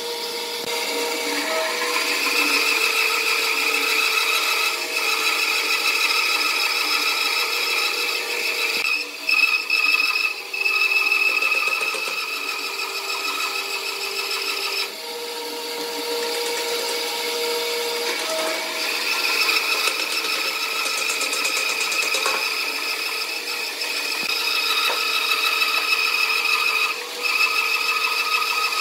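Band saw ripping lengthwise through a thick live-edge wooden slab: a steady high whine from the running blade with cutting noise, its strength rising and falling as the wood is fed through.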